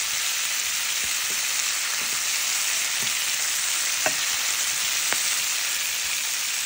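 Jackfruit chunks, sliced onion and garlic sizzling steadily in oil in a nonstick pan as they are stir-fried with a spatula. There are a few light knocks of the spatula against the pan, the clearest about four seconds in.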